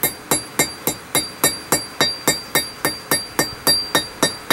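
Hand hammer striking hot forge-welded steel cable on an anvil in a steady rhythm of about four blows a second, each blow ringing off the anvil. The cable has been welded into a solid bar and is being hammered round.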